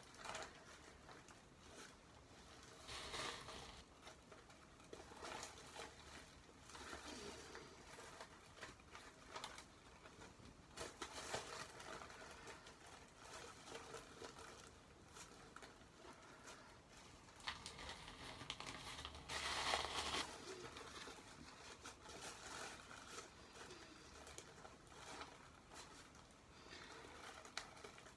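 Faint, irregular rustling and crinkling of a plastic highlighting cap as strands of hair are hooked and pulled through its holes, with a louder rustle about two-thirds of the way in.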